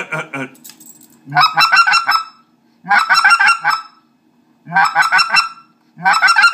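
Specklebelly goose call blown in four short bursts of rapid clucks, about a second apart. This is the speck's cluck, a short burst of five or six clucks that is natural on the water and is used to turn passing birds.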